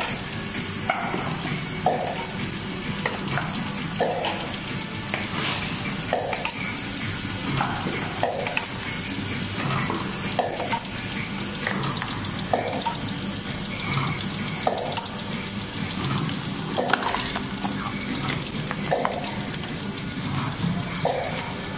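Play-Doh cup filling, sealing and capping machine running, with a steady hiss under short clacks that repeat roughly once a second as it cycles cups.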